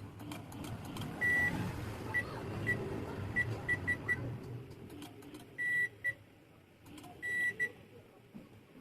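A microwave oven's touch-panel beeper sounding a dozen or so times, mostly short single beeps with a few longer ones, in the way a touch control panel beeps as its keys are pressed. A low hum runs under the first half, with a few faint clicks.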